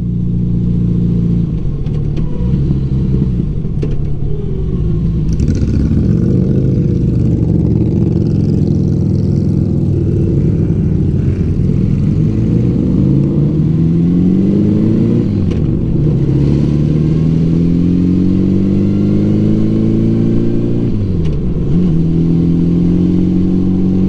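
Engine of a 1984 Honda Gold Wing Aspencade, a flat-four, running on the road and pulling up in pitch as it accelerates through the gears. There are quick drops at gear changes, one about two-thirds through and another near the end, each followed by a fresh climb.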